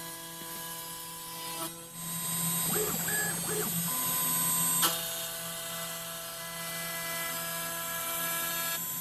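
CNC router spindle running a slot cutter through the edge of a UHMW plastic plate: a steady high machine whine with cutting noise. The sound drops out briefly about two seconds in and there is a sharp click near the middle.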